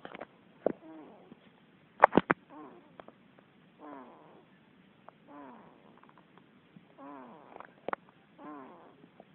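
A sleeping pet snoring: a short snore about every one and a half seconds, each one falling in pitch. A few sharp clicks about two seconds in, and one near the end, are louder than the snoring.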